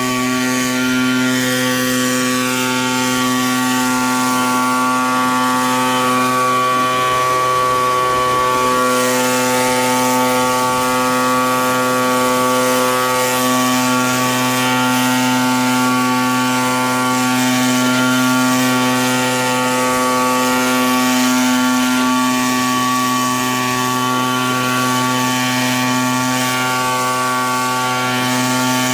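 Engine of a snow-clearing machine running at a constant speed, a loud steady drone that neither revs up nor slows.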